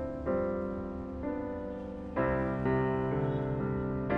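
Soft, slow piano music as background score, with a new chord struck about every second and each chord left to ring.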